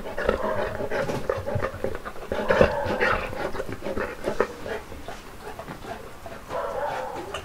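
Saint Bernard eating cake off a plate: wet chewing and lip-smacking with many short clicks, and panting breaths between mouthfuls.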